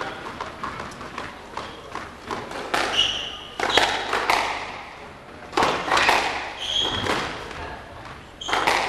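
Squash rally: the ball struck by the racquets and knocking off the court walls, several sharp hits a few per second apart, with a couple of short high shoe squeaks on the wooden floor.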